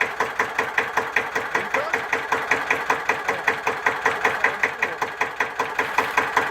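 Deutz F1L612 single-cylinder air-cooled diesel tractor engine idling after a cold start, with an even chugging beat of about five firing strokes a second.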